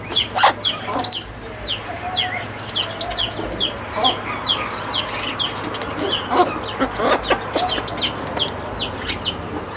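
Many birds calling: a steady run of short, high, falling notes, about two to three a second, with lower calls now and then.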